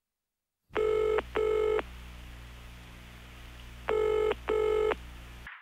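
A telephone ringing in the British double-ring pattern: two short rings, a pause of about two seconds, then two more, over a steady low hum. It cuts off suddenly just before the end.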